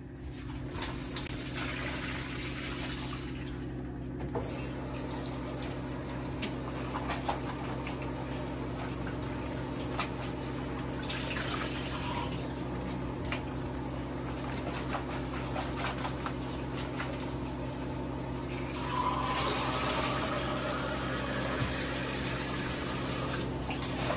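A kitchen tap runs water over strawberries in a bowl in the sink, with light knocks of the bowl against the sink. The water gets louder from about three-quarters of the way in.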